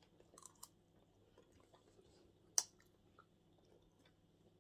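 Quiet eating sounds: soft chewing and small mouth noises at a table, with a few faint clicks in the first second and one sharp click a little past halfway.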